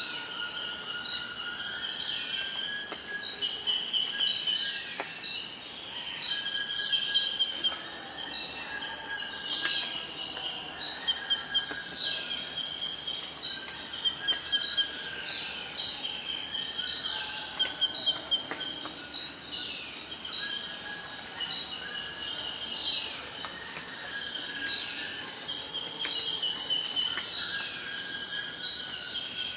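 Rainforest ambience: a steady high-pitched insect chorus throughout, with short bird calls, toucans, repeating every second or two.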